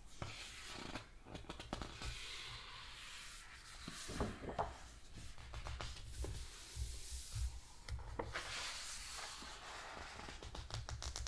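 Pages of a large hardcover book being turned and smoothed by hand: several papery swishes and rustles, with the soft rub of hands sliding over the pages and small taps.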